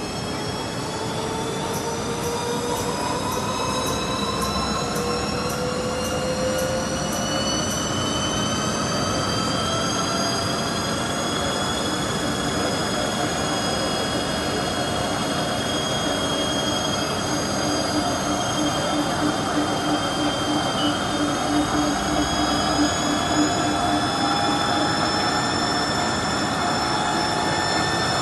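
JHS1300 film slitter rewinder running at speed, a steady mechanical noise with several whining tones that drift slowly up and down in pitch. Faint rapid ticking is heard in the first several seconds.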